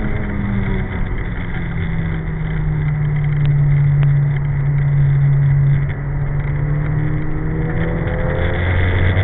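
Nissan Silvia S14's engine under hard track driving, heard from inside the car over road and wind noise. A steady engine note holds and builds, drops off sharply about six seconds in, then a lower note climbs again near the end as the car accelerates.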